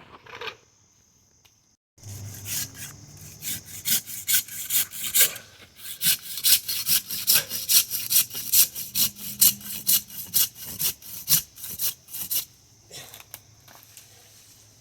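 Hand saw cutting through wood in fast, rhythmic strokes, about three a second. It starts abruptly a couple of seconds in and stops about two seconds before the end.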